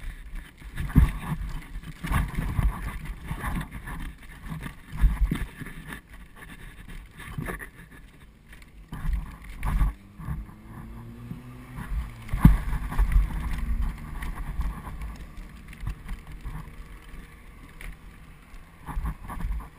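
Bicycle trailer rolling along pavement behind a bicycle: a steady low rumble and wind on the microphone, with irregular bumps and rattles from the trailer.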